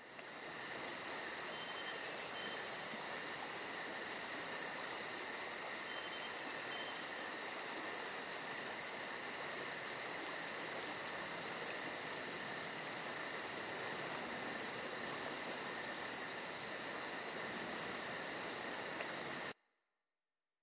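Insects trilling steadily, a high-pitched buzz with a fast even pulse, which cuts off suddenly near the end.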